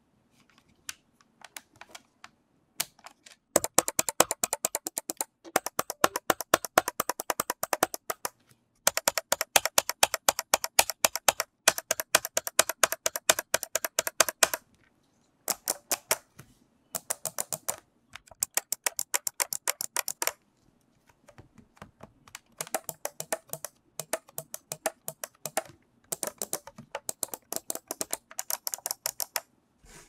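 Kensington SlimBlade Pro trackball ticking in rapid runs of fast, even clicks, about a dozen a second, as the ball is turned and twisted, with short pauses between the runs.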